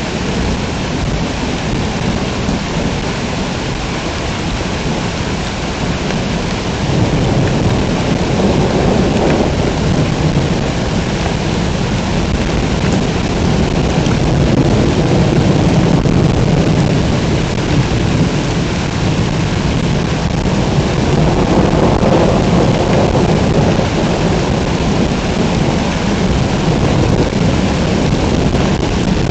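Heavy rain pouring in a thunderstorm, with low rolling thunder that grows louder about a quarter of the way in and keeps rumbling.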